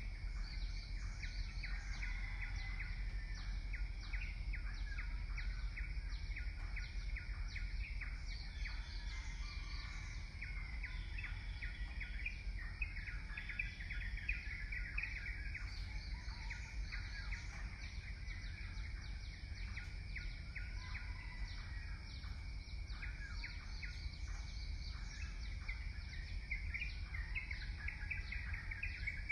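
Outdoor bird chorus: many small birds chirping and calling over one another in quick, irregular notes, over a steady low rumble.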